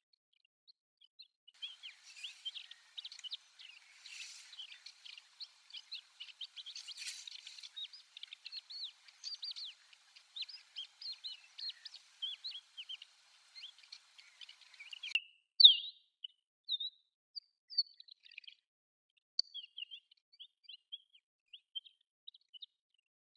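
Desert wheatear subsong: a rambling run of rapid, varied chirps and twitters that breaks off abruptly, followed by a single louder rising note and then sparser scattered notes.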